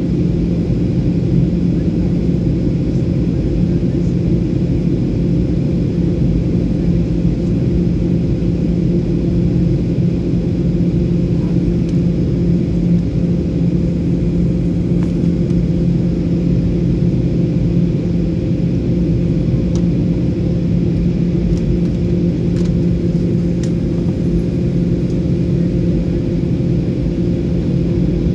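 Steady drone inside a jet airliner's cabin during descent: turbofan engine and airflow noise through the fuselage, with a few steady low hum tones.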